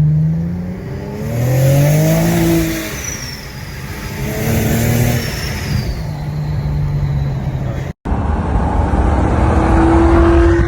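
A car engine revving up and falling back several times, the pitch rising with each rev; about eight seconds in the sound cuts off abruptly and the engine carries on at a steady, higher note.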